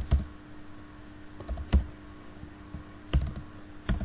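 Computer keyboard being typed on slowly: a handful of separate keystrokes, spaced irregularly about half a second to a second and a half apart.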